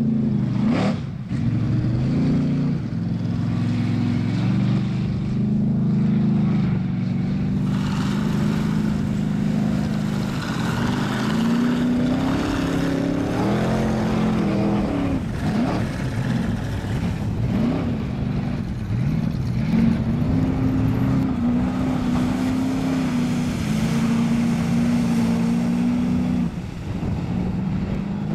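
Big Yellow mega mud truck's engine running hard under load through a flooded mud pit, its pitch rising and falling again and again as the throttle is worked.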